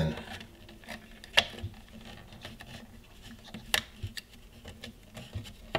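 Small sharp clicks and taps of hardware being handled, two louder ones about a second and a half and nearly four seconds in, as fingers twist a standoff onto a screw through a clear plastic case panel on a circuit board.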